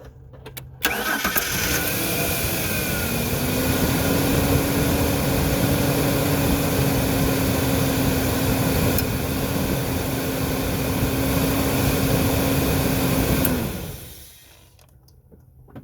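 2004 Ford Ranger engine cranked by its starter about a second in, catching and running steadily for about eleven seconds before it stops near the end. It starts on its new battery terminal post, showing the connection now carries the starter current.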